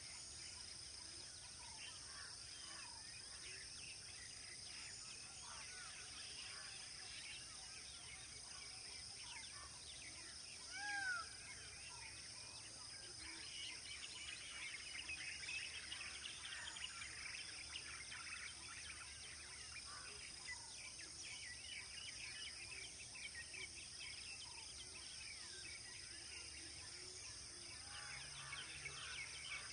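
Outdoor bird chorus: many small birds chirping over a steady high insect drone, with the chirping growing busier about halfway through. One louder arched whistle call stands out about eleven seconds in.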